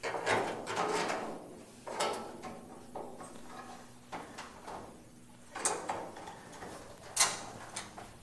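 Locking pliers being worked onto the edge of a steel car body panel: scattered metal clicks and scrapes, with a sharper click past the middle and the loudest one near the end.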